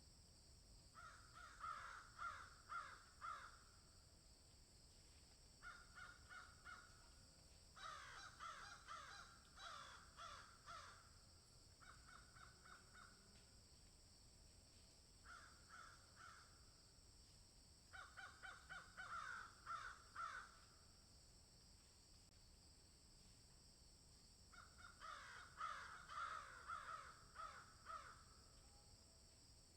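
Birds calling in bouts of rapid, repeated harsh notes, about seven bouts with short pauses between them, over a steady high hiss.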